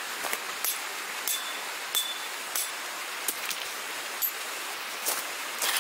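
Footsteps crunching on gravel, one sharp crunch about every half second to second, over a steady background hiss.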